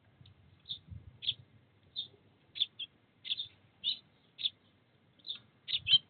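Eurasian tree sparrow chirping: a steady series of about a dozen short, sharp chirps, roughly two a second.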